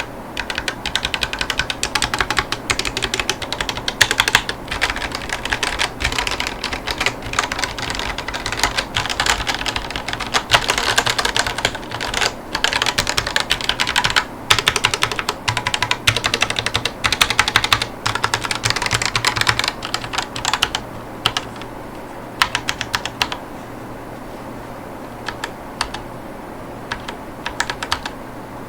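Fast, continuous typing on a Ducky One 3 Aura mechanical keyboard with Drop Holy Panda 65 g tactile switches and silicone Nogi keycaps. After about twenty seconds the typing thins out to scattered single keystrokes.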